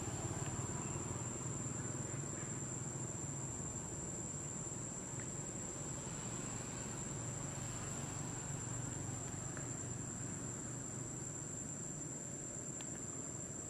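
Insects droning steadily at one unbroken high pitch, over a low steady rumble and hiss.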